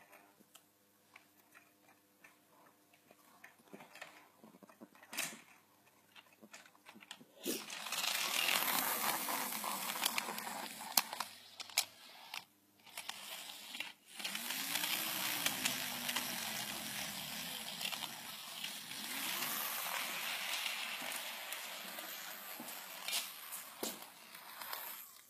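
Model railway locomotive, a Class 33 diesel, running along the track: a whirring, rattling run of motor and wheels on rail that starts about seven seconds in, after a quiet stretch of faint clicks. It dips briefly twice and its pitch rises and falls a little as its speed changes.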